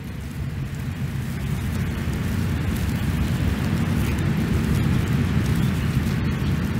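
Low, steady rumbling noise that grows louder over the first couple of seconds, then holds.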